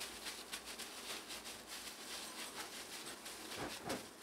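Plastic-gloved hands squishing and patting raw ground beef into a burger patty. The gloves crinkle in faint, irregular little crackles and clicks.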